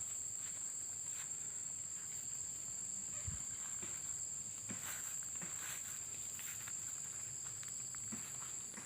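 Insects shrilling in one steady, unbroken high-pitched drone, with scattered light footsteps and rustles in the undergrowth.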